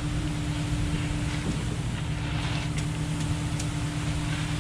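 Concrete boom pump truck running steadily under pumping, a constant low engine hum with a steady tone above it, with some wind noise on the microphone.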